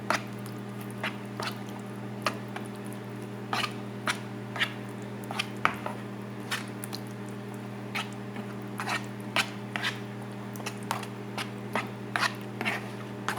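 Spoon stirring a thick tuna and tomato sauce in a bowl: irregular wet squishes and sharp clicks of the spoon against the bowl. A microwave oven hums steadily underneath.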